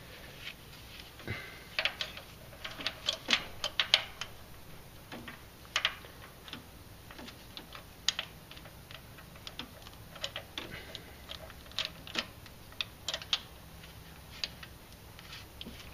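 Irregular light metallic clicks and taps of a rocker arm being worked into place on its valve and lash adjuster under the camshaft of a Chrysler 4.7L V8 cylinder head. The clicks come thickest in a quick cluster a couple of seconds in, then sparser.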